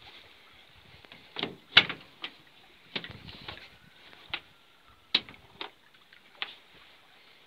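Mercedes Sprinter van's cab door being handled and opened: a string of sharp latch and handle clicks and knocks, the loudest a little under two seconds in.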